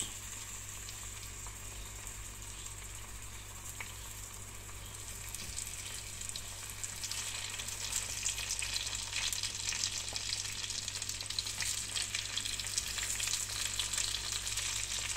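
Tomato slices frying in foaming melted butter in a nonstick pan: a steady sizzling hiss with small crackles, which grows louder and busier from about halfway through as more slices go in.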